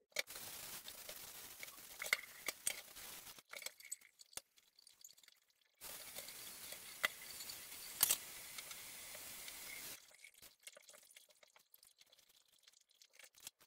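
Kitchen tap running into a stainless steel sink, turned on and off twice, with clinks and knocks as a ceramic dish is rinsed.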